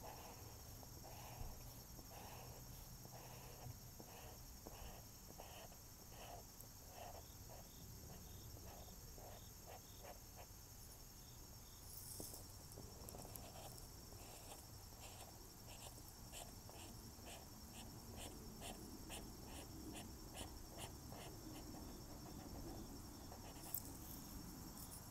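Felt-tip marker colouring on paper: faint, even back-and-forth scratching strokes, about two a second, with a short pause a little before halfway.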